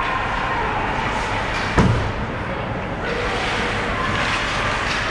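Ice rink game noise: a steady wash of arena sound broken by one sharp, loud bang with a low booming tail a little under two seconds in, as of a puck or player hitting the boards.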